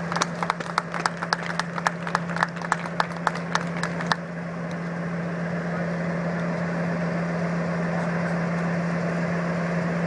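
Class 56 diesel locomotive's Ruston-Paxman 16-cylinder engine idling with a steady hum soon after start-up. A rapid, irregular clicking runs over it and stops abruptly about four seconds in.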